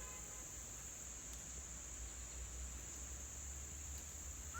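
Steady, high-pitched insect chorus, typical of crickets or katydids trilling without a break, over a faint low rumble.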